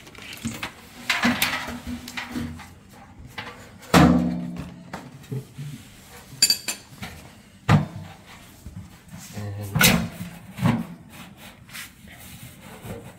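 Clanks and knocks from a sheet-metal furnace blower housing and its motor being handled and set down on the floor, with smaller metal parts clinking in between. The loudest knock, about four seconds in, rings briefly; several sharper knocks follow in the second half.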